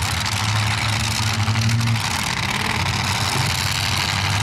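Demolition derby cars' engines running steadily, over a constant background hiss.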